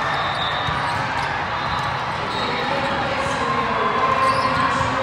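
Busy indoor volleyball hall: balls being hit and bouncing on several courts, with background chatter from players and spectators, all echoing in the large room.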